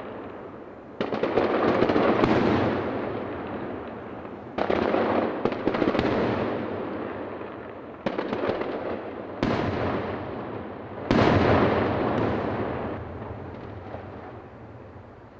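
Fireworks going off: about five sudden booms a couple of seconds apart, each dying away slowly, several followed by a spatter of crackling reports.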